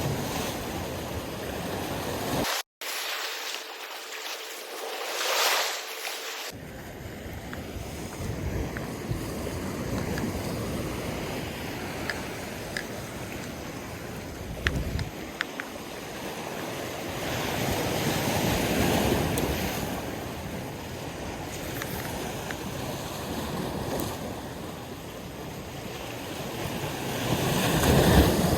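Waves washing with wind on the microphone, a steady rushing noise that swells and eases every several seconds, with a few faint clicks in the middle.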